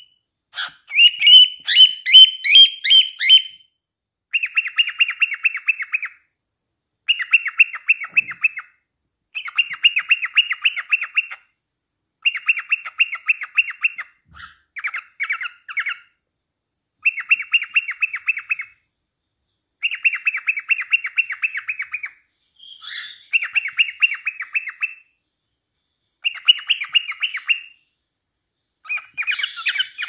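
Cockatiel chattering in repeated bouts of rapid, ticking chirps, about ten bouts of one to two seconds each with short pauses between. The first bout is higher and more whistled than the rest.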